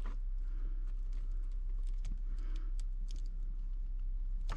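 Small scattered clicks and ticks of hands fiddling with wires and a plastic solder-seal wire connector, over a steady low hum.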